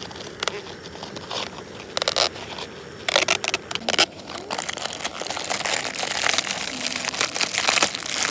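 Paper lid being peeled back from an instant cup-noodle cup in sharp tearing crackles, then a thin plastic noodle packet crinkling steadily as it is pulled out of the cup and handled.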